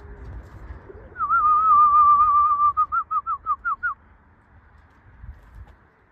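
A person whistling a high, wavering note for about a second and a half. It then breaks into about eight quick, short swooping notes and stops about four seconds in.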